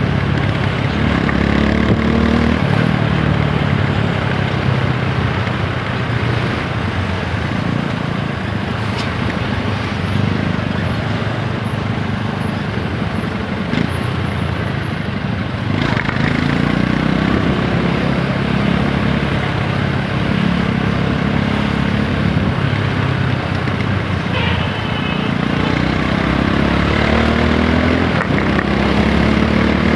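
TVS Apache 160 4V motorcycle's single-cylinder engine accelerating, its pitch climbing and dropping back at each gear change, several times over. A steady rush of wind and road noise runs underneath.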